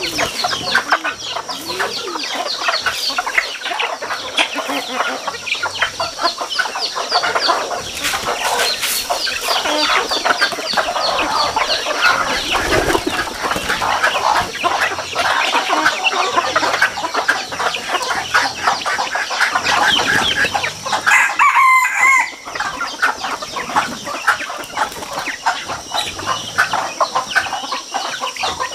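A flock of chickens clucking continually while feeding on scattered grain. About three-quarters of the way through, one rooster crows briefly.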